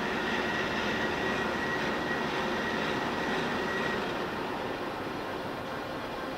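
Gurutzpe gap bed engine lathe running, with a steady high whine from the carriage's power rapid traverse that stops about four seconds in.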